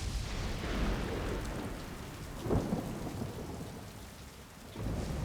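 Thunderstorm sound effect: rain with thunder, a loud thunderclap about two and a half seconds in, and a low rumble of thunder coming back near the end.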